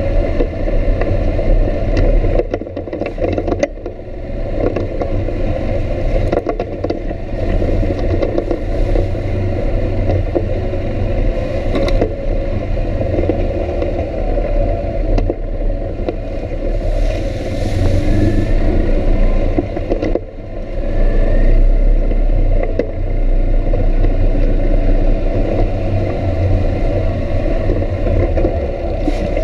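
ATV engine running steadily under the rider while it travels over a bumpy dirt trail, with scattered knocks and rattles from the bumps.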